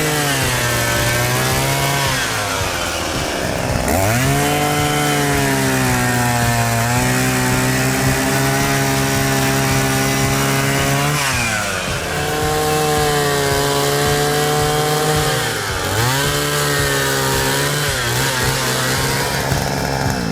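Small petrol engine of a saw running at full throttle. Its pitch drops sharply several times as it bogs down under the cut, then climbs back up.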